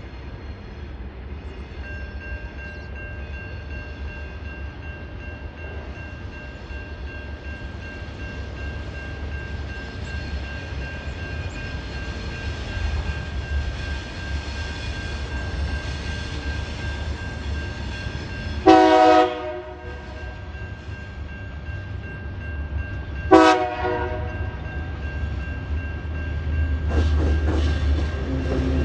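TasRail TR-class diesel-electric locomotives hauling a freight train approach, their engines rumbling louder near the end. The horn sounds twice, a longer blast a little past the middle and a short one about five seconds later. A steady high electronic tone from the level-crossing warning runs underneath from about two seconds in.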